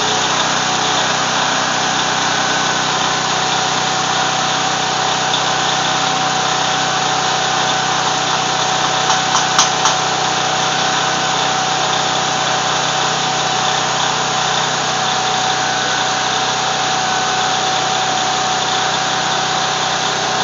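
Welding on a steel beam: a steady, dense crackling hiss with a steady machine hum beneath it, and a few sharp clicks about halfway through.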